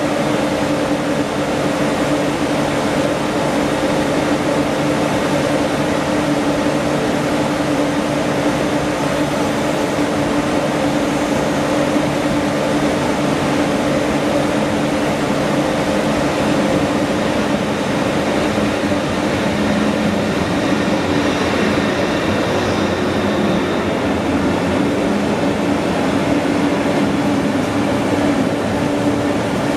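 Railjet train standing at the platform, its electric locomotive humming steadily with two held tones. Near the end an arriving train's coaches roll slowly past.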